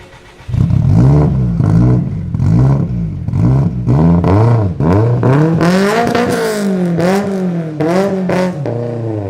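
Supercar engine revved repeatedly in short blips, the pitch climbing and dropping about once a second. It starts suddenly about half a second in.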